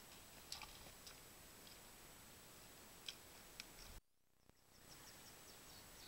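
Near silence: the trail camera's low recording hiss with a faint, steady high whine and a few faint ticks. The sound drops out briefly about two-thirds of the way through.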